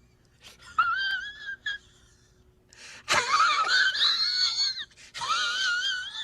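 High-pitched wailing cries with a fast wavering vibrato, three in a row with short pauses, the middle one the loudest and longest.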